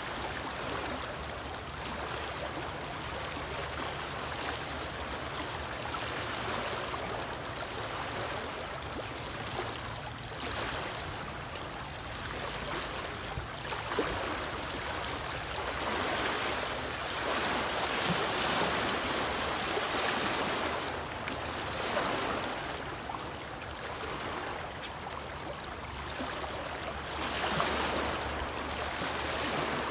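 Small lake waves lapping and splashing against a rocky shoreline, swelling in irregular surges every couple of seconds.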